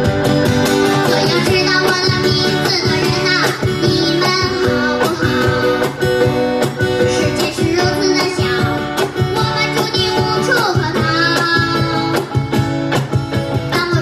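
A child singing a song with acoustic guitar accompaniment and a cajon tapping out a steady beat.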